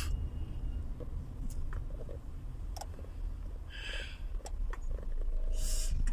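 Low, steady rumble of a moving car heard from inside the cabin, with a few faint clicks and two brief hisses.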